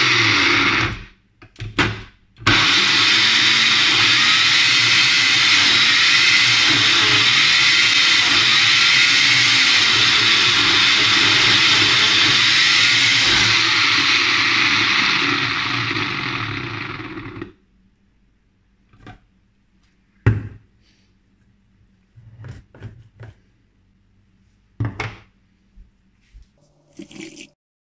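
Sencor Nutri Blend 1000 W personal blender blending chunks of carrot and banana into a smoothie. It stops briefly about a second in and gives two short pulses, then runs steadily, fades and stops after about fifteen seconds. A few knocks and clicks follow as the cup is taken off the motor base.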